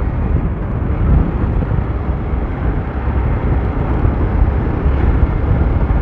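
Heavy wind blast rushing over the microphone of a Hero Xpulse 200 motorcycle at road speed: a steady low rumble with the bike's single-cylinder engine running beneath it.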